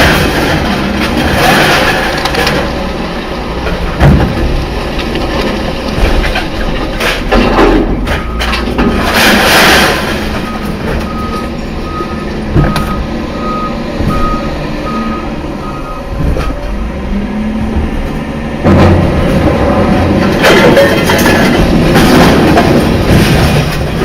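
Heavy vehicle running with rumbling noise throughout; in the middle a reversing beeper sounds a string of short beeps, about two a second, for around five seconds.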